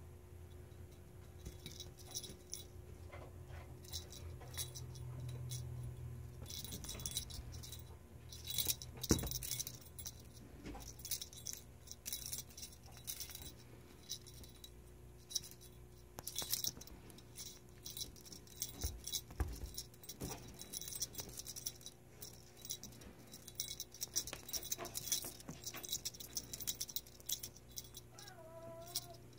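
Light jingling and rattling in irregular bursts from a feather wand cat toy as it is flicked and batted about on a sheet.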